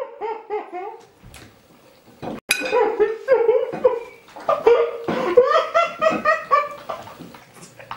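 People laughing hard in repeated bursts, with a sharp clink of a fork on a plate about two and a half seconds in.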